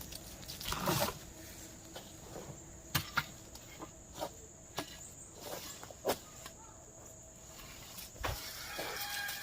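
A few scattered knocks and clicks. Near the end a chicken starts calling.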